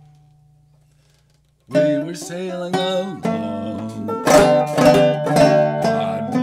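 Banjo played clawhammer style: a chord rings and dies away to near silence, then the picking starts again about two seconds in with sharp plucked notes and strokes on the strings.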